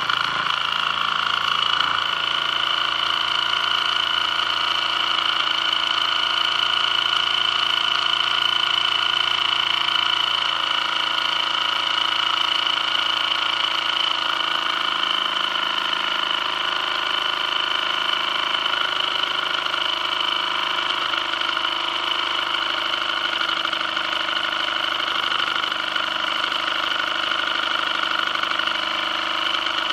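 Vintage toy steam engine with a brass boiler running steadily under steam, its spinning flywheel and piston making a steady, high whir.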